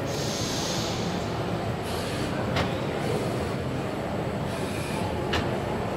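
Steady background din of a busy exhibition hall, with a few short hisses and two sharp clicks, one a little past halfway and one near the end.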